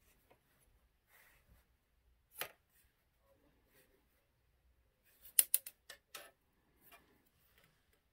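Small clicks and taps from a pen and a metal ruler being handled on a wooden work table: a single tap, then a quick run of several sharp clicks about five seconds in.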